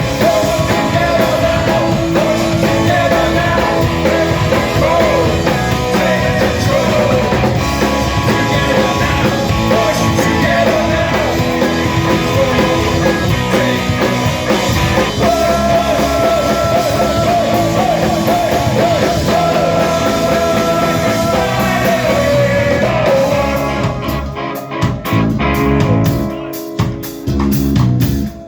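Live rock band playing, with drums, guitar and a sung vocal line. Near the end the music breaks up into short, separated hits with gaps between them.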